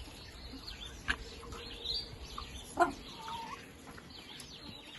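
Chickens clucking now and then in short calls, with small birds chirping faintly in the background.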